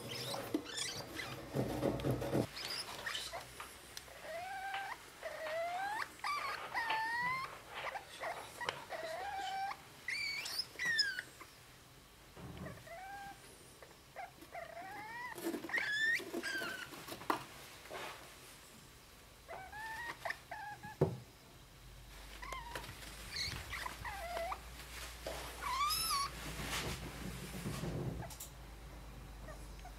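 Degus squeaking: short, high chirps that slide up or down in pitch, repeated every second or two.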